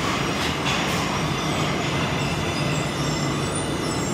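Ginza Line subway train running, a steady rumble with no change in level.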